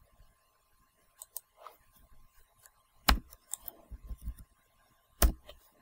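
Computer keyboard keystrokes as code is typed: scattered clicks, with two sharper, louder clacks about three and five seconds in.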